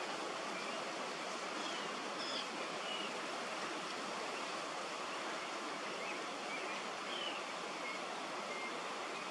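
Steady rushing outdoor background noise with a few faint, short, high bird chirps now and then.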